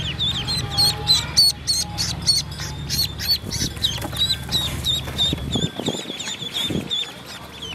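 A brood of ducklings peeping continuously, short high cheeps at several per second. A few soft knocks and rustles of the ducklings being handled come in the second half, and a low background rumble cuts out about three quarters of the way through.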